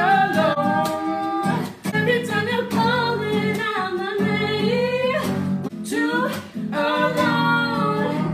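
A woman singing with a strummed nylon-string classical guitar, her voice holding long notes between phrases.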